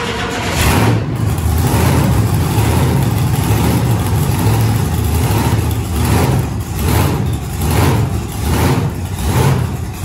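Monster truck engine running loudly as the truck creeps along. From about six seconds in, the throttle is blipped in regular surges about twice a second.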